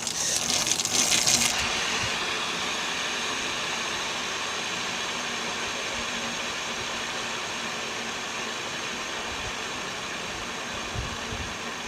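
BMX wheel on a Stealth USA precision hub, spun by hand: a brief rushing noise as it is set going, then a steady, smooth whirr that slowly fades as the wheel coasts. The hub freewheels almost silently, with no rhythmic pawl clicking.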